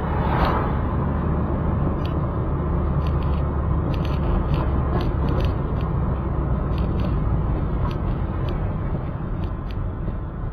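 A car driving along a highway: a steady rumble of engine and tyre noise, with scattered light clicks.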